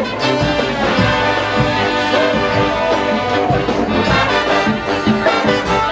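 Music with brass instruments playing, loud and steady.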